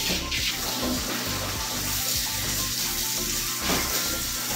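Handheld shower sprayer with a brush head rinsing soap out of a dog's wet coat: a steady hiss of running spray.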